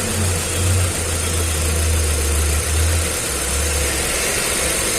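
Hyundai i20 four-cylinder petrol engine idling roughly and unevenly: it is misfiring, with one cylinder not firing, the fault a shorted, cracked ignition coil.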